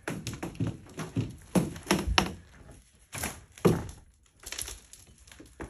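Footsteps and knocks on a rubble-strewn floor: an uneven series of thumps, with a few louder thuds.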